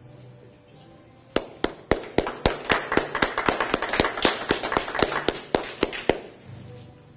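A small group clapping: sharp, separate hand claps, several a second, starting about a second and a half in and stopping about six seconds in.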